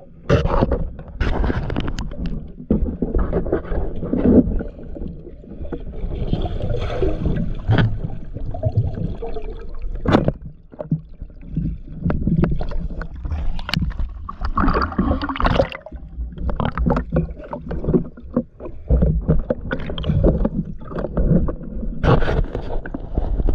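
Muffled rush and gurgle of water moving around an action camera held underwater, broken by frequent sharp clicks and knocks as the diver swims and handles the speargun.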